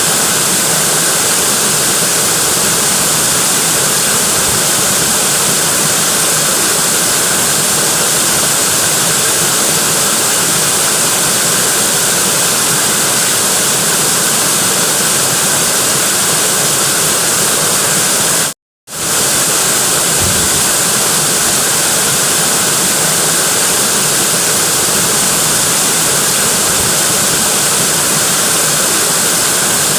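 Natural waterfall: a steady, loud rush of falling water, heaviest in the hiss. The sound cuts out completely for a split second about two-thirds of the way through, then resumes unchanged.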